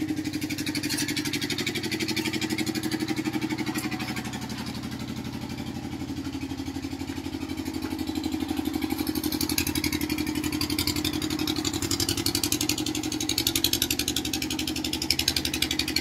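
A small engine running steadily with a fast, even throb, dipping a little in level a few seconds in and picking back up.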